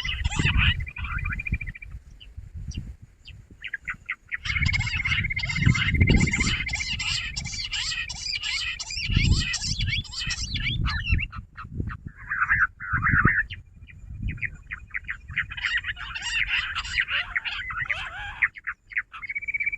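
Jungle bush quail calling: dense, rapid runs of short chattering notes that stop and start again several times, over low rumbling thumps.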